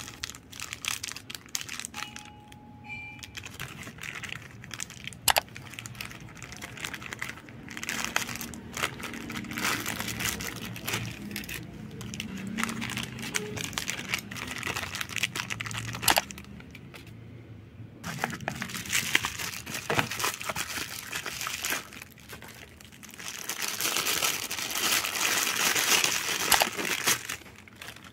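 Thin clear plastic bag and bubble wrap crinkling and crackling as they are handled and unwrapped by hand, with many sharp little clicks. There are two louder stretches, one in the first half and one near the end.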